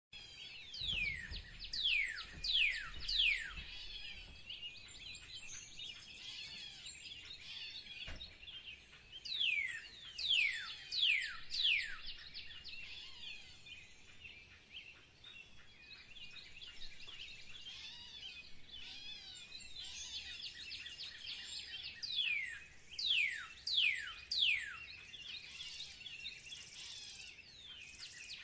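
Birdsong chorus: one bird sings bouts of loud whistled notes, each sliding steeply down in pitch, about two a second. The bouts come three times: right at the start, around the middle and near the end. Underneath runs a steady busy twittering of many other small birds.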